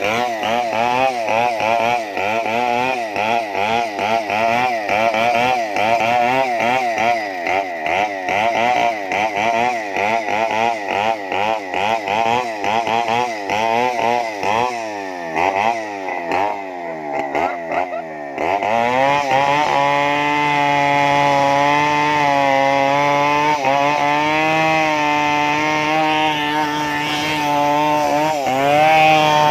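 Stihl 070 two-stroke chainsaw engine running with its speed surging up and down over and over, more than once a second, the odd 'funny sound'. Around the middle it sags lower, then it settles into a steadier, higher run for roughly the last third.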